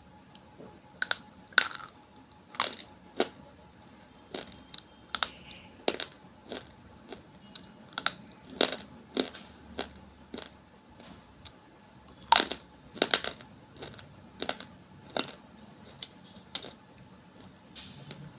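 Crisp, sharp crunches at an irregular pace of one or two a second, the loudest about a second and a half in and again about twelve seconds in.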